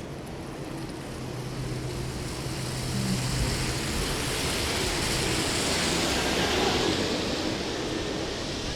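A vehicle passing on a wet street: tyre hiss on the rain-wet road swells to a peak about six seconds in and then eases, with a low engine hum in the first few seconds.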